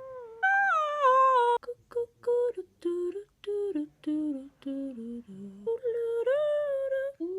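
A woman humming a wordless tune: a long note sliding down, a run of short notes stepping lower and lower, then a long note that rises and is held near the end.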